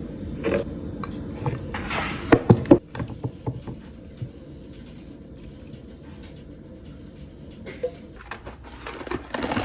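Kitchen clatter of pots and utensils: a quick run of knocks and clinks about two to three seconds in, then scattered lighter clicks over a steady low hum. A hissing rush starts near the end.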